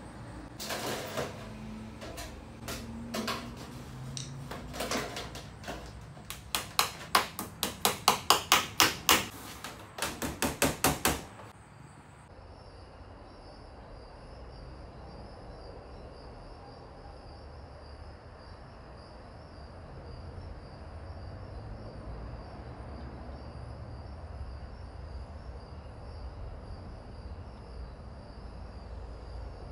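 Hammer blows nailing aluminum trim coil onto a wooden door frame: a few separate knocks, then a quick even run of strikes, about four a second, which stops about eleven seconds in. After that there is only a faint steady background.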